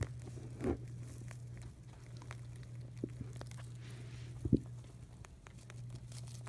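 Baby Holland Lop rabbits munching and tugging at hay, a run of small crunches, crackles and rustles over a steady low hum, with one sharper knock about four and a half seconds in.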